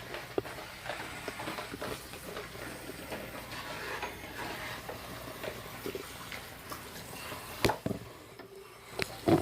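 Scattered light clicks and knocks of objects being handled, with two sharper knocks near the end.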